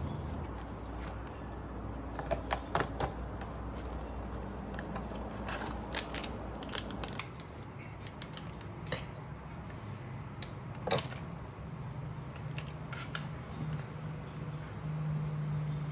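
Small kitchen handling sounds: a cloth wiping a counter, then a coffee sachet being opened and tipped into a ceramic mug. Scattered light clicks and taps, the sharpest about eleven seconds in, over a low steady hum.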